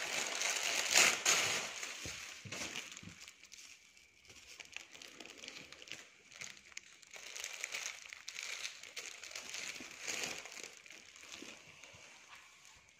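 Rustling and crinkling as hands rummage through clothes packed in a cardboard box, loudest in the first couple of seconds, then quieter, scattered rustles.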